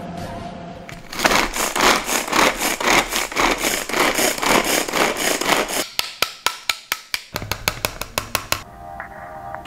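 Pull-cord manual food chopper chopping onion: the cord is yanked again and again, and the spinning blades make a fast rattling scrape against the onion and the plastic bowl. It is followed by a quick run of sharp ratchet clicks.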